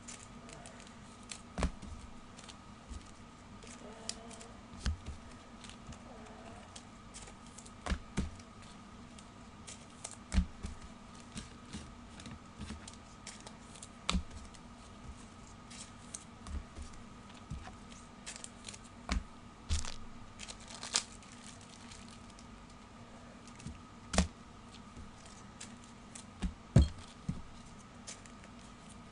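Football trading cards being handled and shuffled: irregular sharp clicks and taps, roughly one every second or two, over a steady faint hum.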